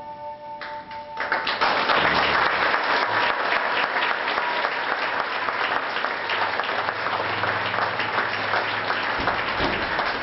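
A woman's held final sung note with accompaniment ends about a second in, and an audience breaks into loud, steady applause.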